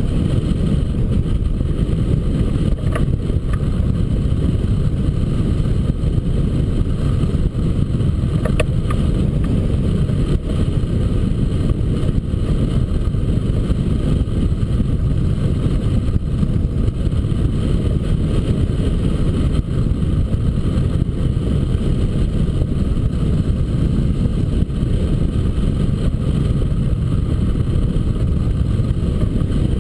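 Wind rushing steadily over the microphone of a camera mounted on a hang glider in flight: a loud, dull buffeting of airflow that stays even throughout.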